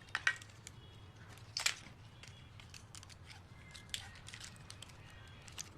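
Plastic drone parts clicking and knocking as they are handled, with scattered small ticks and a sharper snap about a second and a half in.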